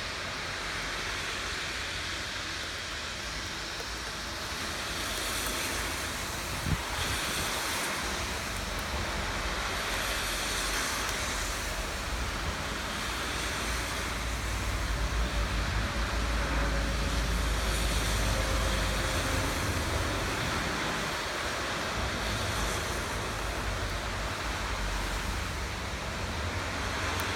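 Steady rain falling, an even hiss with a low rumble underneath that swells for a few seconds past the middle. A single sharp click sounds about seven seconds in.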